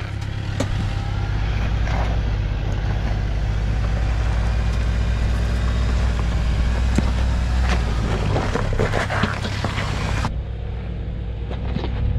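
A 4x4's engine running steadily under throttle as it crawls over rock, with scattered knocks and crunches from the tires and chassis on the rocks.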